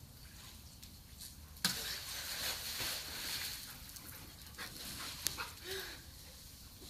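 Splash in a swimming pool about a second and a half in, followed by a couple of seconds of splashing water. Near the end a dog gives a short whine.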